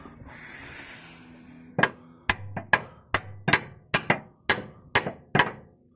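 Hammer blows driving a freezer-chilled GKTech solid bush into the bore of a Nissan V35 rear differential: about nine sharp strikes, roughly two a second, starting about two seconds in.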